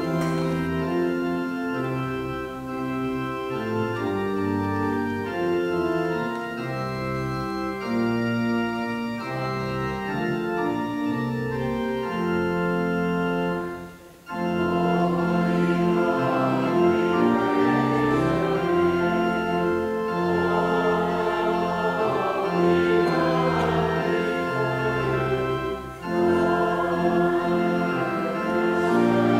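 Church organ playing a slow piece in sustained chords, with two short breaks between phrases, about halfway through and again near the end.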